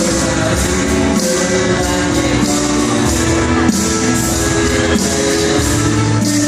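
Background music: a rock-style song with guitar and a steady beat.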